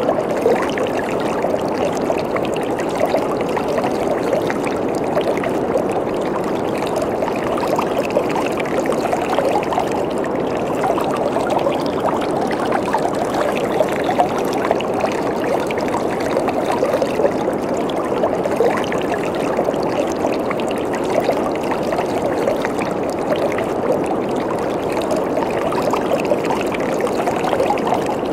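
Waterfall: water falling and splashing, a steady rushing sound.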